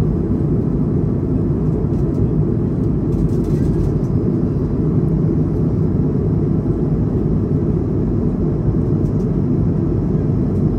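Steady low rumble of a jet airliner in cruise heard inside the cabin: engine and airflow noise, even and unbroken.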